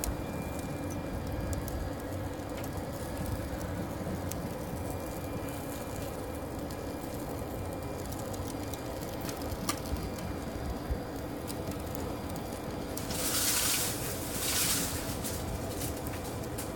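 Steady rushing rumble of the pizza oven's fire burning, with a few light clicks and two short bursts of hiss near the end.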